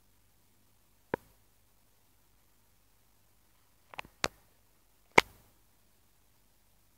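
A handful of short, sharp clicks or taps against a nearly silent background: one about a second in, two or three close together around four seconds, and the loudest about five seconds in.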